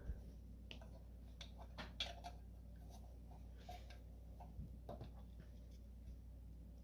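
Faint, scattered clicks and light rustles of trading cards and their packaging being handled, over a low steady room hum.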